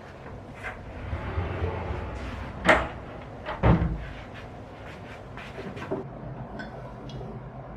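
A run of knocks and clunks over a low rumble. Two loud clunks come about a second apart near the middle, with lighter clicks before and after.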